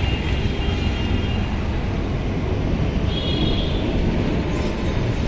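Steady street traffic noise: a continuous low rumble of buses and cars going by, with a brief faint high-pitched tone about three seconds in.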